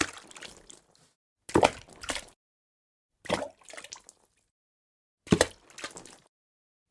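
Water dripping: four separate clusters of drops, each a sharp splash followed by a few smaller plops, coming about every one and a half to two seconds with dead silence between them.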